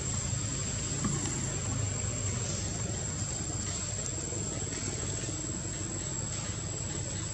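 Steady outdoor ambience: a continuous high-pitched insect drone over a low, even rumble.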